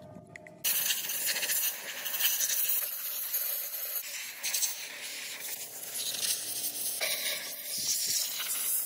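Compressed-air blow gun hissing steadily as it blows dust and loose rust out of a rusty machine, starting about a second in and shifting in strength a couple of times.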